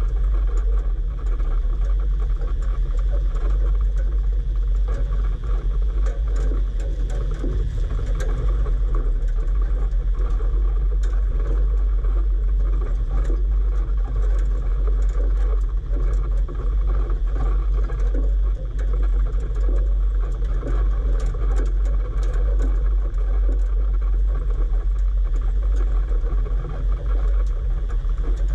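Toyota four-wheel-drive driving slowly over a rough lava track: a steady low rumble of engine and tyres with constant rattling and clattering from the bumpy ground.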